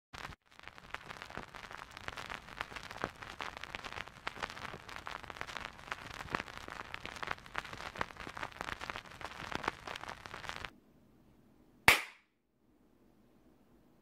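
Crackle and pops of a vinyl record's surface noise, which stop abruptly. About a second later comes a single sharp hand clap, the clap that sets off a sound-activated burglar alarm.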